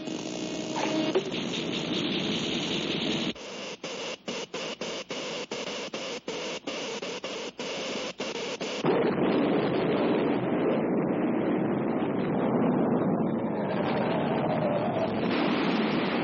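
Electrical noise from the earthquake machine's sound effects in a 1940s cartoon soundtrack. About three seconds in it starts stuttering on and off, roughly four times a second. Near nine seconds it gives way to a louder, steady, deeper noise.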